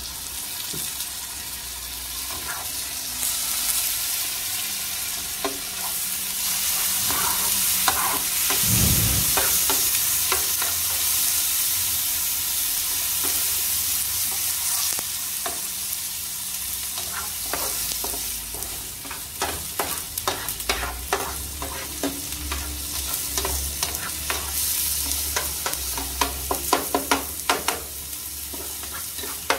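Chopped onion, garlic, green pepper and tomato frying in a paella pan as a sofrito, a steady sizzle, while a long-handled metal skimmer stirs and scrapes across the pan. The clicks and scrapes of the skimmer come thick and fast in the last third.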